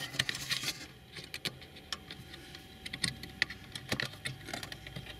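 Irregular sharp plastic clicks and small rattles of a wiring connector and its release latch being pressed and worked by hand to free the hazard-light switch lead behind a car radio.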